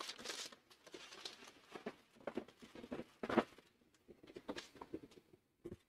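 Faint rustling and scattered light knocks as packing wrap and the cardboard box are handled.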